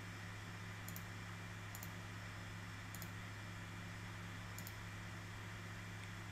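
Computer mouse button clicking four times at uneven intervals, each a faint short tick, as points are picked while routing traces in PCB design software. A steady low hum and hiss lies underneath.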